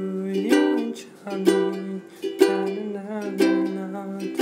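A ukulele strummed in a slow rhythm, a strong strum about once a second, with a man singing along in long held notes.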